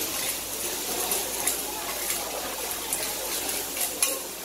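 Clams sizzling on a banana leaf on a hot flat griddle, a steady hiss with light clicks of metal tongs and a spatula turning the shells; a sharper click about four seconds in.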